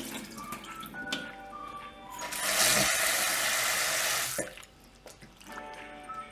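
Kitchen tap running into a plastic bowl of soaking dried fish in a stainless steel sink for about two seconds in the middle. Soft background music plays underneath.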